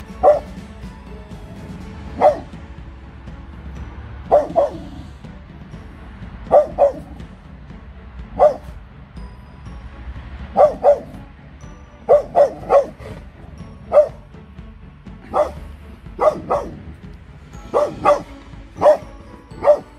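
Red-nose pit bull barking: short, sharp single barks and quick pairs, every second or two.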